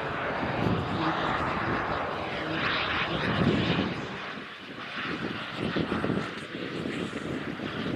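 Turbine engine of a radio-controlled model jet in flight: a loud, even jet noise that swells, fades briefly about halfway through and then rises again as the jet passes.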